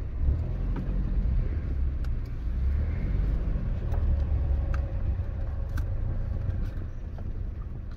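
Cabin sound of a 2006 Mitsubishi Pajero iO with its 2.0-litre petrol engine, driving along: a steady low engine and road rumble, with a few faint clicks.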